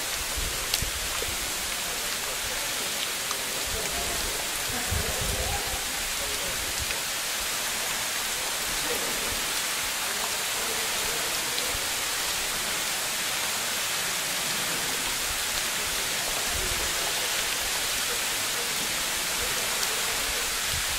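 A steady, even hiss, heavier in the high end, with a single sharp click about a second in.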